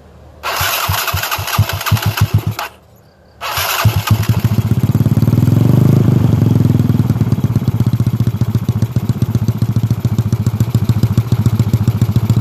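Bored-up Yamaha Mio scooter's single-cylinder four-stroke engine being electric-started through a DSM racing exhaust silencer. A first crank of about two seconds stops, and a second try about three seconds in catches. After one brief rise and fall in engine speed, it settles into a steady idle.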